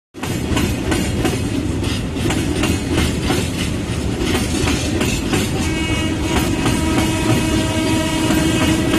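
Express train passing at speed, its wheels clacking over the rail joints. About six seconds in, the WAP-4 electric locomotive's horn starts and is held at a steady pitch.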